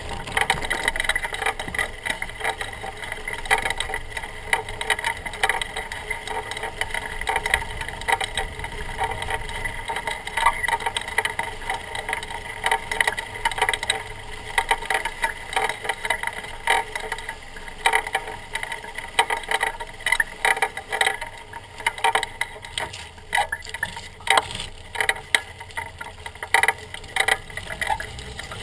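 Mountain bike rolling over grass and pavement, heard through a camera mounted on the front suspension fork: a steady hum from the knobby front tyre with frequent clattering knocks and rattles over bumps, thicker in the second half.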